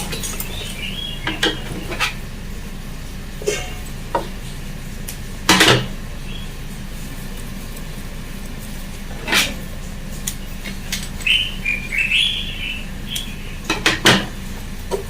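Sewing-table handling: scattered sharp metal clicks and clinks over a steady low hum, with a few short high chirp-like sounds about two-thirds of the way through.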